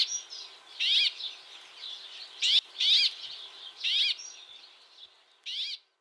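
Brambling calling in the treetops: about six short, high calls at irregular intervals, the winter calls rather than the song.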